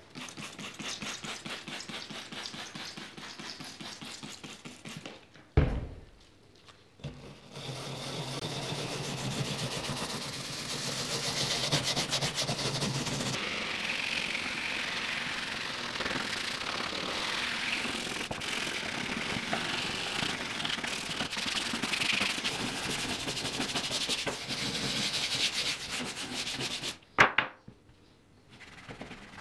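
Stiff-bristled scrub brush scrubbing a cleaner-foamed vinyl dash pad in rapid back-and-forth strokes. A sharp knock comes about five seconds in, followed by a short pause, and another knock comes near the end.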